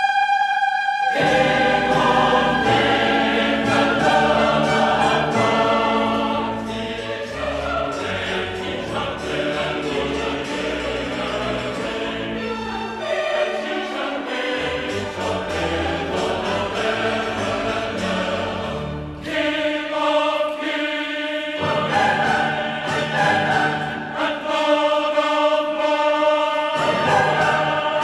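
Choral background music: a choir singing sustained, slow-moving chords over instrumental accompaniment.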